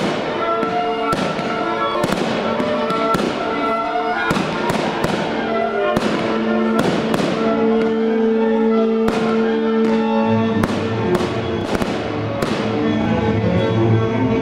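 A fireworks display going off: repeated sharp bangs and crackles over loud music with long held notes. A deep bass part joins the music about two-thirds of the way through.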